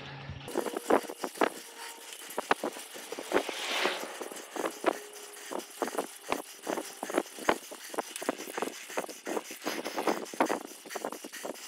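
Road bicycle climbing a steep hill on cracked asphalt: irregular clicks and rattles from the bike as it jolts over the rough surface, over a steady hiss.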